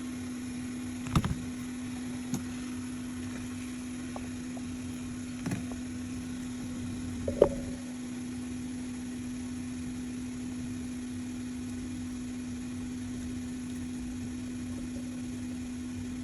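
Hot-air rework station blower running steadily with a constant hum and hiss while a display IC is reballed, with a few light clicks of tools on the board.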